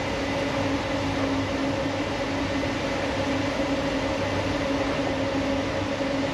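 Underground coal-mine machinery running steadily: a constant mechanical drone with a steady hum, with no change or pause.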